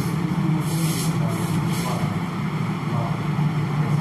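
Steady low hum throughout, with a few short, faint scratches of a marker writing on a whiteboard in the first two seconds.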